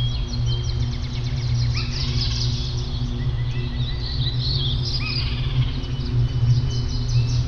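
Several songbirds chirping and trilling rapidly and continuously, overlapping one another, over a steady low hum.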